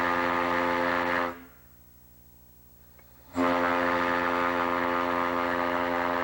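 A large 10-inch by 36-inch ship's steam whistle blown on compressed air gives long, steady, deep blasts of one pitch. One blast stops about a second in, and another starts about three and a half seconds in and holds for about three seconds.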